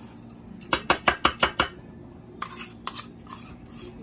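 A kitchen utensil knocking against cookware, probably while mashed potatoes are being mixed. About six quick, sharp knocks come about a second in, followed by a few lighter clicks.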